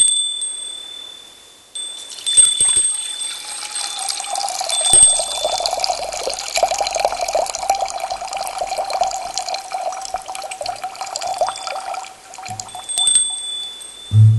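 Water trickling and splashing, with a high ringing chime struck at the start, again about five seconds in and near the end.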